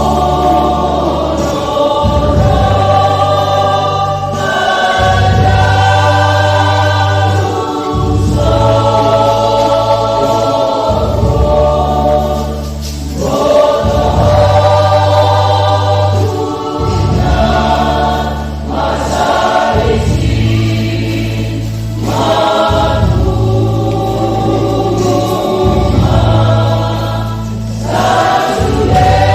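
Church choir singing a Batak hymn in parts, over a low, steady accompaniment that changes note every second or two.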